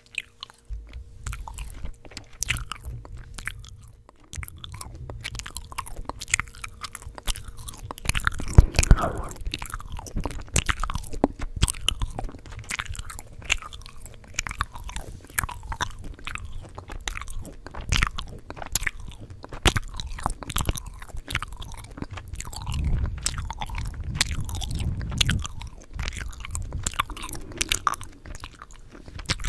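Close-miked chewing gum: wet, irregular smacking and clicking mouth sounds in a steady run of quick snaps.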